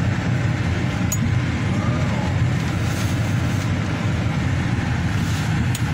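Car engine and road noise heard from inside the cabin while it drives, a steady low hum.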